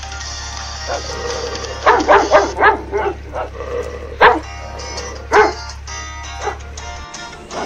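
German shepherd puppies yipping and barking in short, high calls. There is a quick run of about five about two seconds in, then single yips every second or so, over background music.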